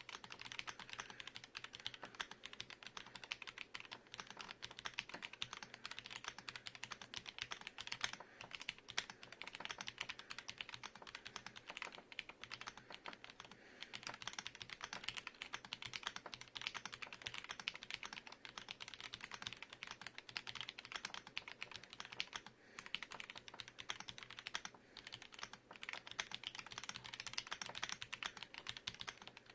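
Royal Kludge M75 mechanical keyboard with RK-branded brown switches being typed on steadily: a rapid, quiet stream of key clacks, with short pauses about a third and three-quarters of the way through.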